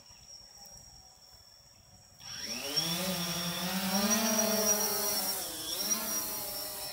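DJI Phantom 3 Standard quadcopter's motors and propellers spinning up about two seconds in as it takes off, a buzz that rises in pitch, then holds steady as the drone climbs, with a brief dip in pitch near the end.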